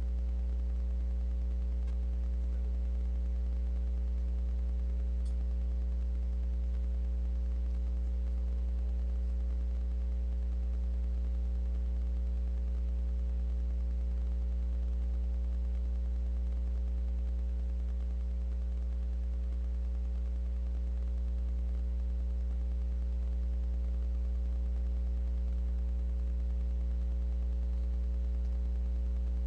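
Steady low electrical hum with a few higher overtones, unchanging throughout, and one faint tick about five seconds in.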